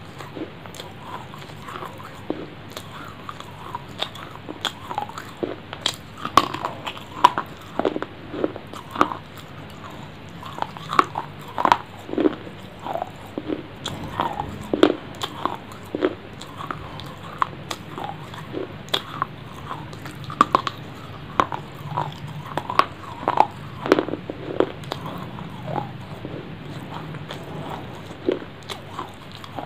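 Close-miked eating: a person biting and chewing food into a clip-on microphone, heard as many short, sharp clicks and snaps at an irregular pace.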